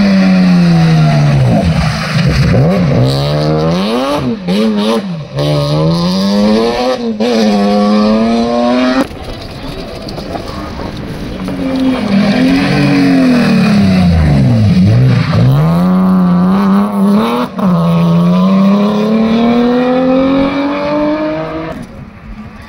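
Two BMW 3 Series rally cars, an E46 and then an E36, passing one after the other at full stage speed, their engines revving hard. Each engine's pitch drops and climbs repeatedly as the driver lifts and gets back on the throttle; the second car's note climbs steadily as it accelerates away and fades near the end.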